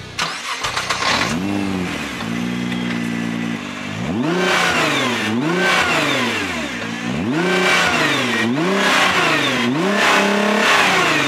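Nissan GT-R R35 50th Anniversary's 3.8-litre twin-turbo V6 heard at its exhaust. It starts up with a brief flare, settles to idle, and then from about four seconds in is revved several times, each rev climbing and dropping back.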